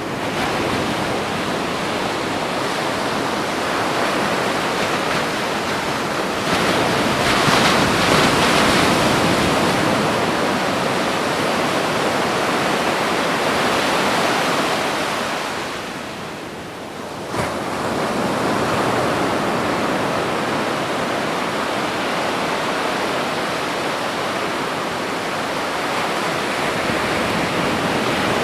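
Ocean waves breaking on a beach, a continuous wash of surf. It swells louder about seven seconds in, fades briefly just past the middle, then the next wave breaks suddenly.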